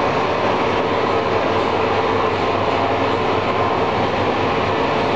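Steady mechanical drone of shop machinery running, an even noise with a low hum underneath that does not change.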